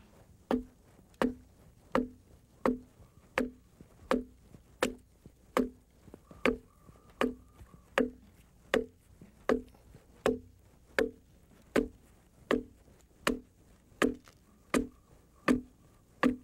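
Carpenter's foot adze chopping into the top of a hewn log, about three strikes every two seconds in a steady rhythm, each a short wooden knock. The adze is dressing the log's flat surface, working like a plane to take down the surface.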